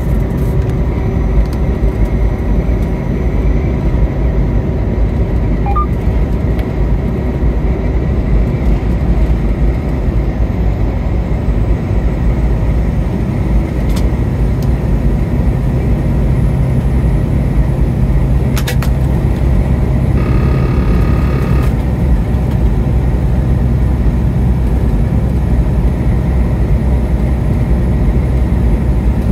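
Steady road and engine noise of a moving car, a constant low rumble. A short high-pitched tone sounds for about a second and a half, a little past two-thirds of the way through.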